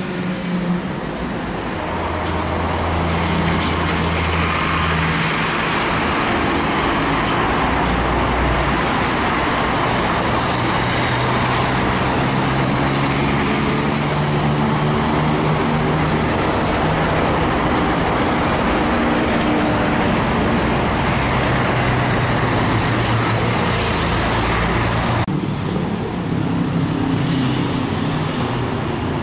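Steady, loud road traffic with heavy-vehicle engines running, their low engine tones shifting in pitch in steps; the sound changes abruptly about 25 seconds in.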